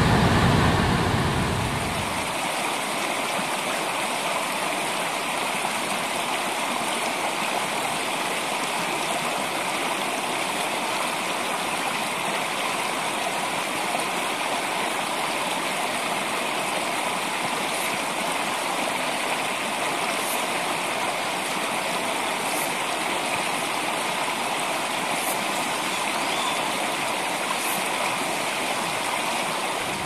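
Steady rush of running water, like a stream, even and unbroken throughout. A low rumble fades out over the first two seconds, and a few faint high ticks sound a couple of seconds apart in the second half.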